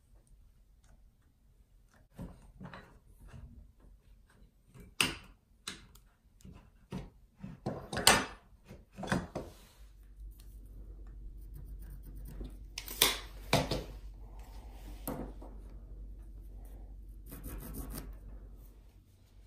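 Workshop handling of wood: scattered knocks, taps and rubbing or scraping of wood. From about ten seconds in a low steady hum runs under it, with a few sharper knocks.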